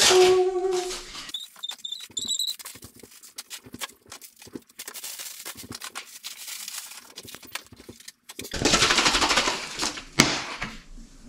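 A woman's sung line trails off about a second in. Scattered clicks and clattering of things being handled follow. Near the end comes a loud rushing noise of about two seconds with one sharp click in it.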